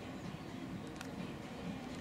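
Quiet outdoor railway-platform ambience: a low, even background murmur with a single faint click about a second in.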